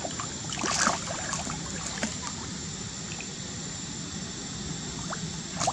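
Water splashing as monkeys wrestle and swim in a pond, with a loud splash about a second in and another near the end, over a steady background of moving water.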